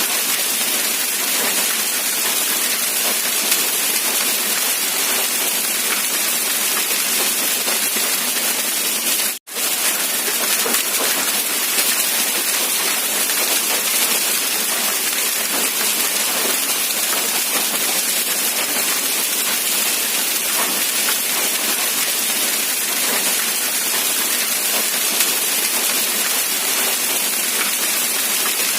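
Steady, even rain hiss. The sound cuts out for a split second about nine seconds in, then resumes.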